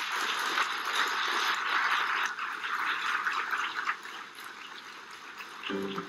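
Audience applauding, a dense patter of many hands clapping that fades away over the last couple of seconds.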